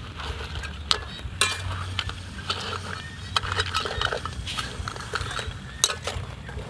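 Metal ladle scraping and clinking against a steel wok as vegetables and seafood are stir-fried, in irregular strokes about once a second.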